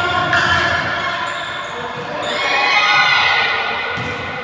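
Indoor basketball game: a ball bouncing on the hardwood court, with high squeaky tones and players' sounds echoing in the gym hall.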